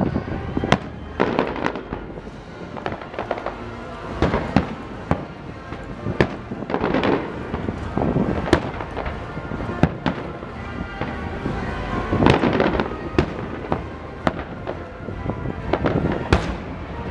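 Fireworks show shells bursting in quick, irregular succession, one to several booms a second. Each bang trails off in an echoing rumble, with heavier clusters of bursts about seven and twelve seconds in.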